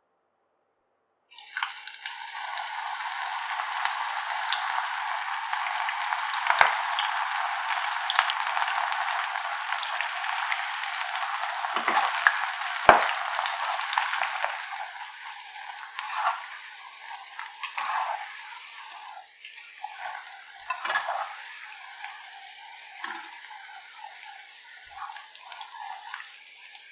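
Batter-coated baby corn deep-frying in hot oil: a dense sizzle starts about a second in as the pieces go into the oil, then thins in the second half to lighter, scattered crackling. A few sharp knocks of a metal slotted skimmer against the pan, the loudest near the middle.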